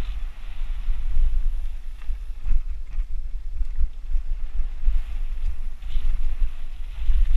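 Wind buffeting the camera microphone as a mountain bike rides fast down a dirt singletrack. Knobby tyres hiss over the dirt and leaf litter, and the bike gives a few short knocks and rattles over bumps.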